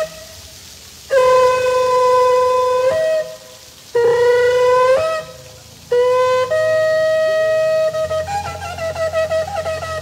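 A long twisted shofar blown in three held blasts with short pauses between them: the first about two seconds long, the second rising a little in pitch, the third jumping to a higher note. The last blast breaks into a quick wavering trill near the end.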